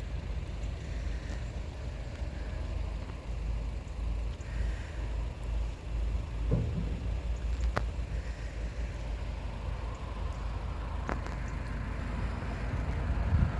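Low, gusting rumble of wind buffeting the microphone on an open seafront, with a few faint clicks.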